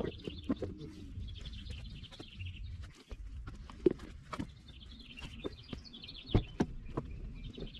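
Birds chirping in short bursts, with a low background rumble and scattered sharp knocks and clicks, the loudest about four seconds in and twice near six and a half seconds.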